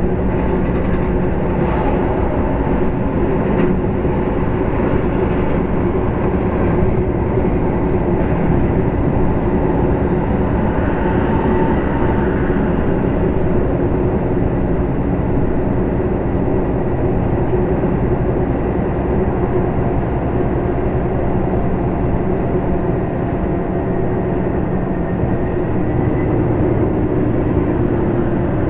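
Heavy goods vehicle cab noise while driving slowly: the diesel engine's steady drone with tyre and road noise, picked up inside the cab.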